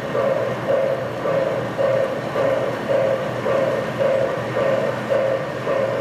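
Model railroad turntable's drive motor running as the bridge rotates, a pulsing hum that swells and fades about twice a second.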